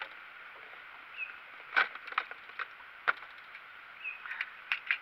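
Irregular sharp knocks and clicks as a landing net holding a big channel catfish and a hand scale are handled in a small boat, the loudest knock a couple of seconds in. Two short high chirps come in between.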